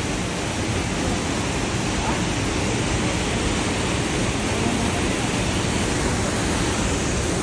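Swollen, muddy stream rushing through a rocky gorge and over a small waterfall: a steady, unbroken rush of water.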